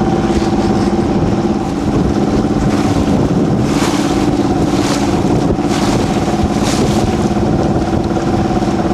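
Boat engine running steadily at a constant speed, with a few brief rushes of hiss about halfway through.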